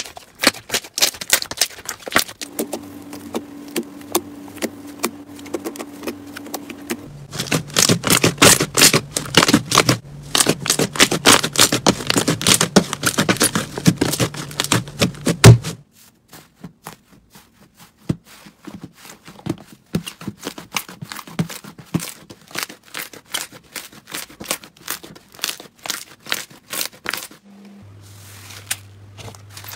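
Hands squeezing, stretching and kneading slime, making a rapid run of small clicks and crackles as air pockets pop. The clicking is busiest and loudest from about seven to sixteen seconds in, then goes sparser.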